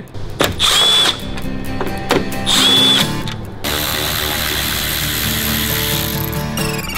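Cordless power screwdriver whirring in two short bursts, about two seconds apart, as it backs out the fasteners of the front wheel-arch liner.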